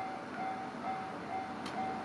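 Japanese level-crossing warning bell ringing, an electronic ding repeating about twice a second at a steady pitch. A short click sounds near the end.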